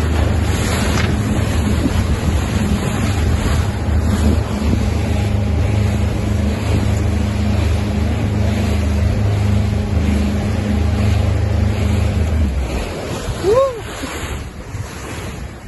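A small motorboat's engine runs with a steady low hum under the rush of water and wind buffeting the microphone. About 13 s in the engine hum drops away. Just after, a brief swooping tone rises and falls, the loudest moment.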